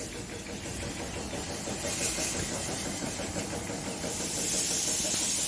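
Bike-wash pressure washer at work: a low, pulsing motor or pump chug, joined about four seconds in by a louder hissing water spray.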